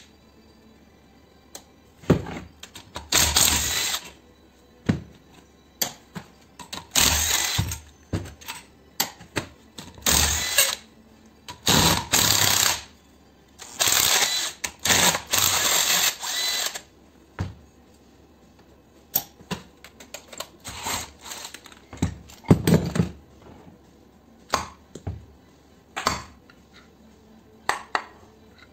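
Cordless Makita drill-driver running in short bursts, about five of them lasting one to three seconds each, backing out the bolts of a pressure washer's pump head. Metal parts clink and knock between the bursts, and sharper knocks follow in the second half as the pump is taken apart.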